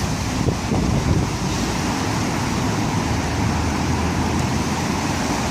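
Strong gusty wind from Hurricane Ophelia, buffeting the microphone with an uneven low rumble over a steady rushing hiss.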